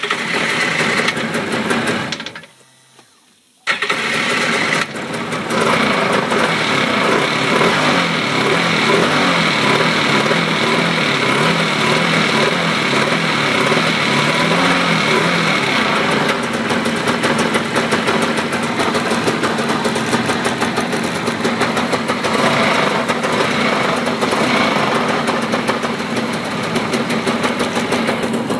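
1996 TigerShark Montego personal watercraft's two-stroke twin engine, cold-started on choke. It catches, dies after about two seconds, then starts again a second later and keeps running steadily.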